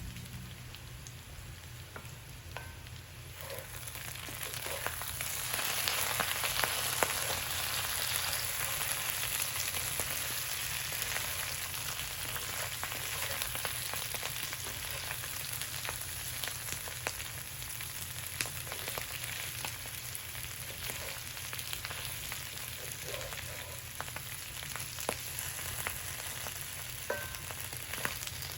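Food frying in a hot pan: a steady sizzle with many fine crackles, growing louder about five seconds in.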